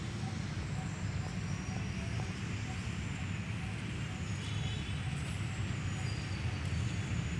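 Steady low outdoor rumble, like distant traffic, with faint high chirps and short whistles above it.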